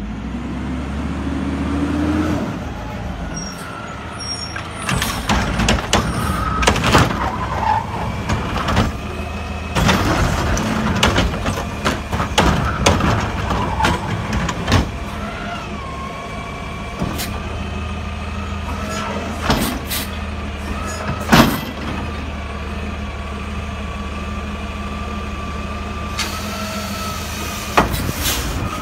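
Front-loading garbage truck with an automated cart carrier: its engine runs steadily while the hydraulics whine and the lift arm tips wheelie bins, with repeated loud clanks and bangs of bins and metal and a hiss of air brakes. About two seconds before the end a rushing noise comes in, as the contents of the hopper catch fire and flames burst out of the top.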